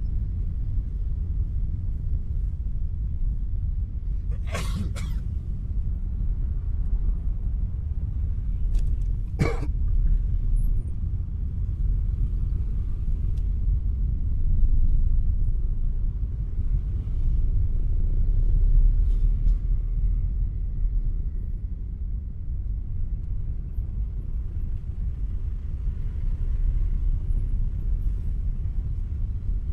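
Low, steady rumble of dense, crawling motorbike and car traffic in a jam. A quick double knock comes about four and a half seconds in, and a single knock about nine and a half seconds in.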